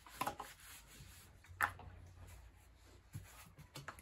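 Faint handling noises from a plastic funnel being shifted in the neck of an aluminium bottle. There are two short rubbing scrapes, about a quarter second in and at about a second and a half, the second being the loudest, then a couple of light taps near the end.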